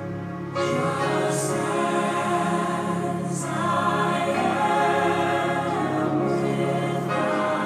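A choir singing long held notes over music, played through theater speakers; it comes in louder about half a second in.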